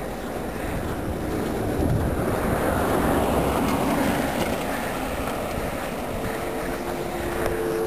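A vehicle going by on a snowy road, its rushing noise swelling and then easing off; about six seconds in, a steady whine starts and holds.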